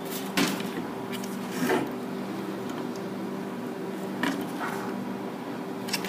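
Small front-panel connector wires and their plastic plugs being handled over a motherboard, giving a few short rustles and light knocks, over a steady background hum.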